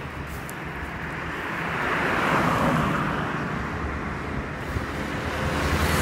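A road vehicle passing on the asphalt road beside the microphone, its tyre and engine noise swelling to a peak about two seconds in and then fading, with another vehicle approaching near the end.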